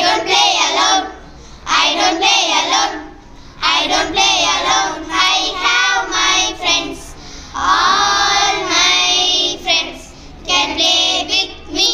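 Young girls singing together in short phrases with brief pauses between them, with one longer held phrase about eight seconds in.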